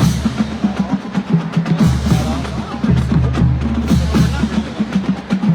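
Marching band playing, with the drumline's snare and bass drums striking rapidly over held low notes. It starts with a sudden loud hit.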